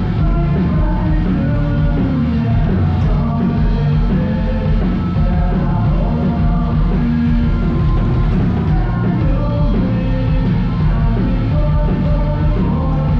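Rock music playing steadily at full level.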